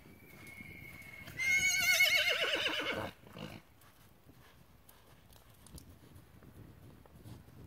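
A horse whinnies once, about a second and a half in: a loud, quavering call that falls in pitch over about a second and a half.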